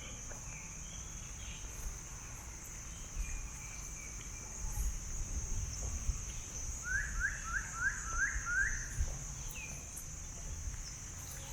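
Steady high-pitched insect drone, with a bird calling a quick run of about six sliding notes a little past the middle and other birds chirping faintly. A low rumble runs underneath.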